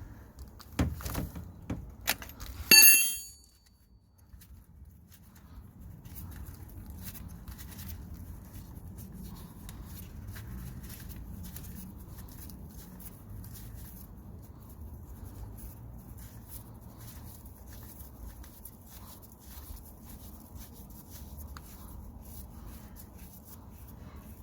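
Metal tools and parts being handled: a few knocks, then one sharp metallic clink that rings briefly about three seconds in. After that, only faint low background noise with small ticks.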